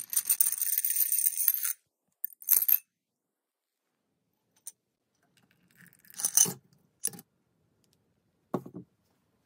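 Loose metal coins jingling and scraping against a glass jar as it is pushed through a pile of coins, a dense clatter for almost two seconds. A few short clinks and rattles of coins against glass follow later, with silence between them.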